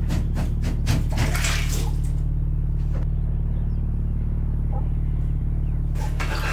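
A low steady drone with a run of short, ragged breaths over it in the first two seconds, then a single breath about three seconds in.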